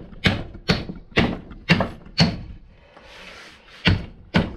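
Lump hammer striking a CV joint on a driveshaft held in a vice, knocking the joint off the shaft: sharp metallic blows about two a second, a short pause, then two more blows near the end.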